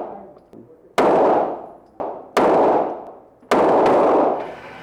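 Gunshots from a handgun fired at a shooting range: three shots about a second and a quarter apart, the last quickly followed by a fourth. Each shot has a short echoing tail.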